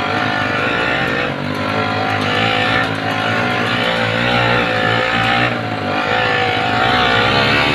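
Yamaha 80cc engine running hard at high revs under load, its pitch dipping briefly and rising again twice.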